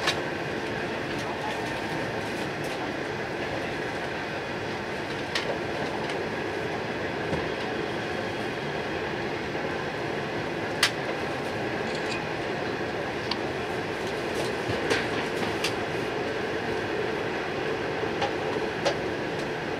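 Steady interior noise in the upper-deck cabin of an E4 series Max double-decker Shinkansen: an even rumble and hiss with a faint hum. A few sharp clicks and knocks break through it, the loudest about halfway through.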